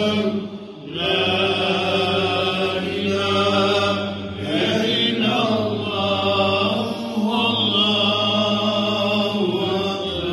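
A man's voice chanting Islamic devotional lines over a mosque microphone and loudspeakers, in long drawn-out melodic phrases with a short breath pause about half a second in and another near the end.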